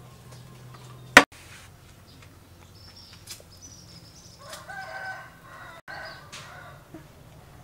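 A rooster crows once in the background, a single drawn-out call a little after halfway through. A single sharp click about a second in is the loudest sound.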